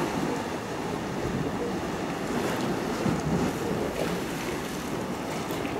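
Steady wind rushing and buffeting on the microphone, an even hiss with no distinct events.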